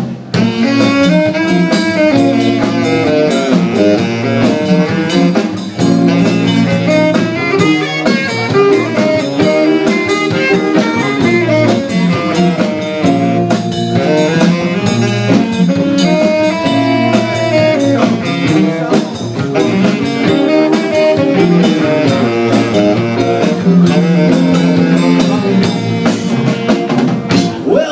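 Live blues-rock band playing an instrumental break: electric guitar, electric bass and drum kit, with a melodic lead line over a steady groove.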